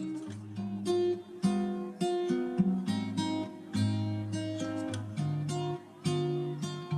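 Background music: an acoustic guitar picking a melody, its notes starting sharply and ringing on, about two a second.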